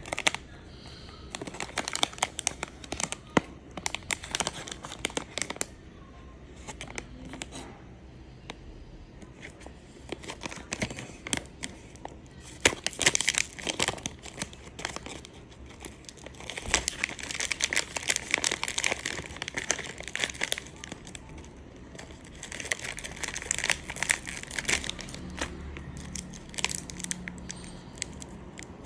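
Nin Jiom herbal candy wrappers crinkling as they are handled and opened: irregular crackling in bursts with short pauses, loudest about halfway through and again near the end.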